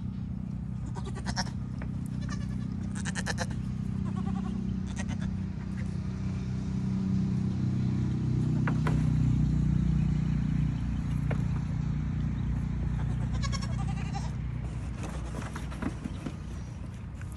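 Goats bleating in short calls, a few in the first five seconds and more near the end, over a low steady hum that swells in the middle.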